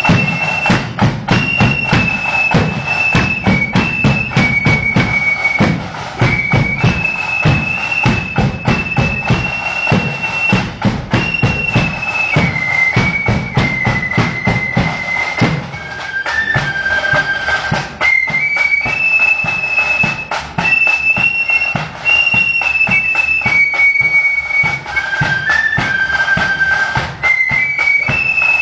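Marching flute band playing a tune, many flutes in unison carrying a high melody over steady side and bass drums.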